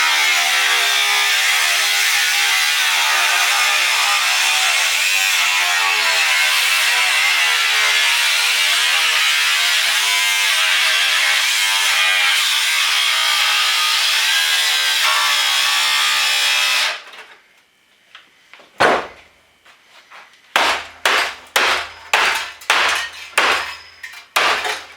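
A small power tool running hard, its motor pitch wavering up and down as it bears into the work, then cutting off suddenly. Sharp knocks follow: one, then about two seconds later a rapid run of a dozen or so blows.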